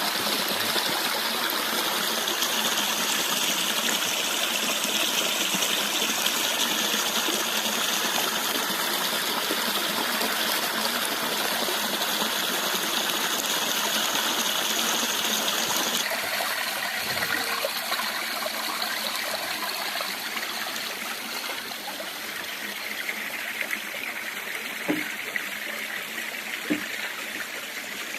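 Stream rushing over rocks with a steady, loud water noise. Partway through the sound changes suddenly and becomes a little quieter, and a couple of short knocks come near the end.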